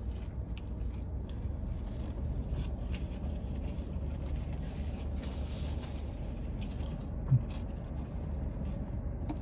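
A man chewing a mouthful of bacon burger with his mouth closed, faint soft crunching and mouth sounds over a steady low car-cabin rumble. A brief low hum of his voice about seven seconds in.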